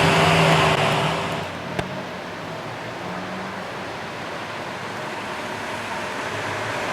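Lamborghini Aventador LP700-4's V12 engine running at a steady note that fades away over the first second and a half, leaving steady street traffic noise. A single sharp click comes about two seconds in.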